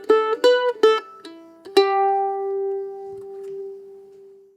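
Outro music on a plucked string instrument: a quick run of plucked notes, then a final note that rings on and slowly fades out.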